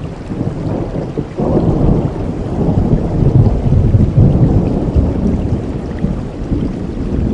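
Steady rain with a roll of thunder that breaks in about a second and a half in and rumbles for several seconds, easing off near the end.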